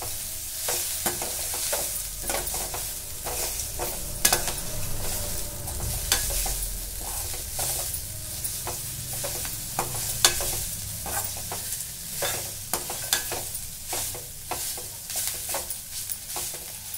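Balloon vine (mudakathan) leaves with shallots and garlic sizzling in oil in a stainless steel kadai, stirred by a slotted metal spatula that scrapes and clicks against the pan several times a second.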